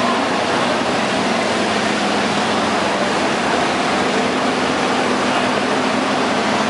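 Riding lawn mower engine running steadily with an even hum under a constant noise, with no revving or changes in pitch.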